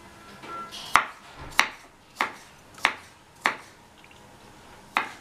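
Knife chopping peeled cucumber on a wooden cutting board: six sharp knocks of the blade through to the board, about one every 0.6 s, with a pause of about a second and a half before the last.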